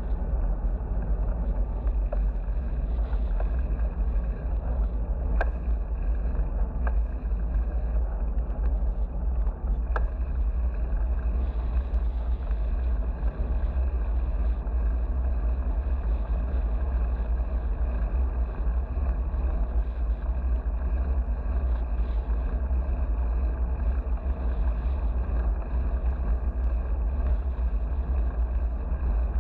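Steady low rumble of wind buffeting a GoPro action camera's microphone as the bicycle carrying it rides along.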